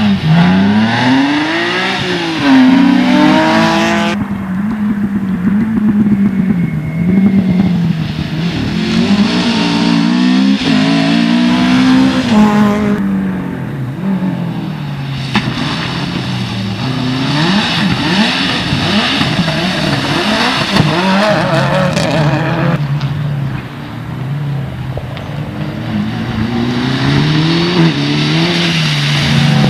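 Rally car engines revving hard through a corner one car after another: the pitch climbs, drops at each gear change or lift-off and climbs again. The sound cuts abruptly to a new car a few times, first a BMW rally car and near the end a Mitsubishi Lancer Evolution.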